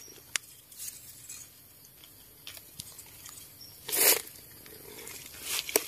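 Scattered crunches and snaps of dry forest leaf litter and twigs being disturbed during mushroom picking, with one louder rustling crunch about four seconds in.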